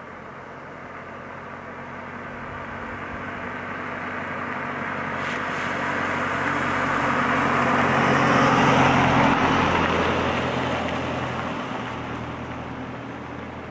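A car driving past along the street: the sound swells as it approaches, is loudest about nine seconds in, then fades away.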